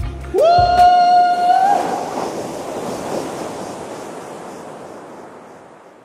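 Outro sound effect: a single horn-like tone swoops up and holds for about a second and a half. A wash of surf-like noise follows and fades away.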